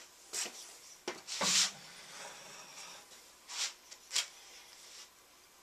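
A paintbrush working polyurethane onto wood: a few short rubbing swishes, the loudest about a second and a half in.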